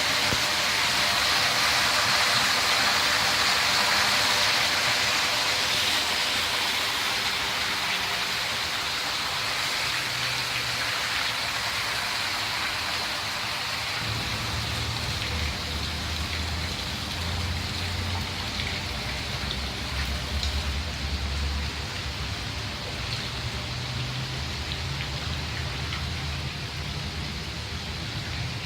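Steady, rain-like hiss of falling water or spray, easing slowly, with low rumbles coming and going from about halfway through.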